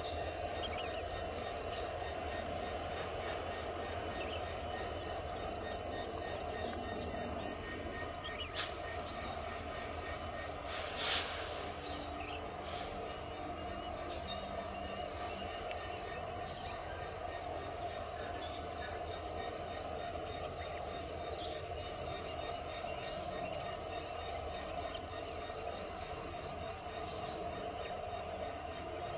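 Steady chorus of insects with a rapid pulsing chirp, over a low rumble of distant diesel locomotives running. Two short sharp clicks stand out about a third of the way in, the second one louder.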